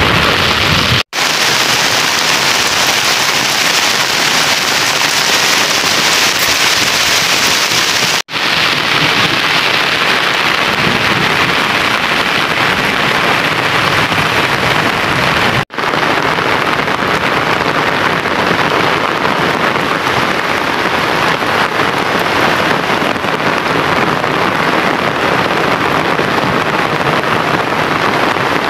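Steady heavy rain falling, a dense even hiss. It cuts out for an instant three times.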